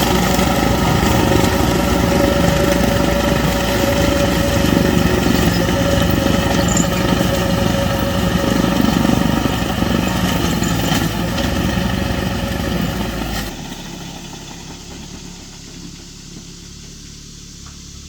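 Tractor engine running steadily while pulling a bush hog rotary cutter, with a steady whine over the engine. About thirteen seconds in it drops away suddenly to a much quieter background.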